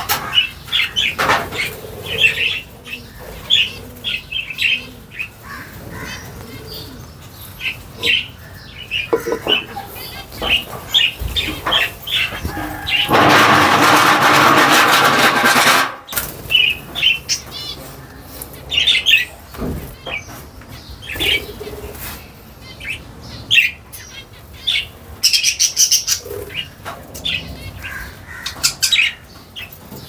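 A cage of parrots calling, with many short high chirps and squawks throughout. About halfway through, a loud rushing burst of noise lasts about three seconds and cuts off suddenly.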